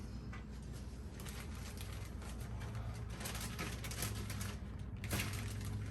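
Kitchen food-prep handling: irregular rustling and light ticks as dough balls are coated in flour and moved into a bowl of egg, over a low steady hum. The handling grows busier about halfway through.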